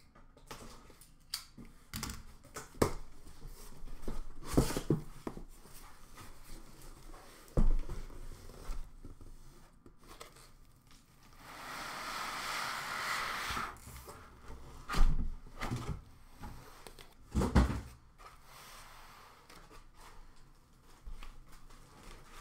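A taped cardboard shipping box being opened by hand and a foam packing insert pulled out of it: scattered knocks, thumps and cardboard rustles, with a few seconds of steady rustling near the middle.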